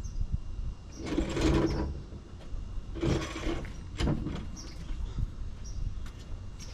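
Vice grips scraping and clicking on a stripped oil drain plug as it is worked at, with two longer rasping scrapes about a second and three seconds in.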